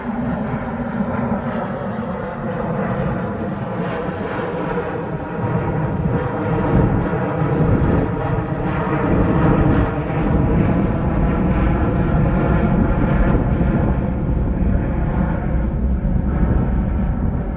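Airbus A350-1000 prototype's Rolls-Royce Trent XWB-97 turbofans: a loud jet roar with a steady whine of fan tones over a deep rumble, growing louder about six seconds in and holding.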